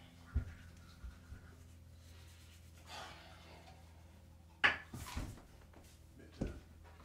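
Heavy breaths and a few soft thumps and scuffs of a person moving in a small bathroom, over a low steady hum. A sharp, loud huff comes about four and a half seconds in.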